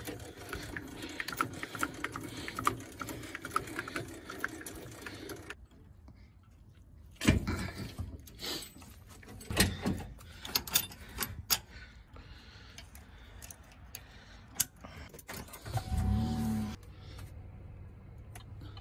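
A trailer being hitched to a truck: a steady rattle, then a series of sharp metal clanks and clicks of the coupler and safety chains at the hitch ball. About sixteen seconds in, a vehicle engine starts, rising briefly in pitch, then settles to a steady low idle.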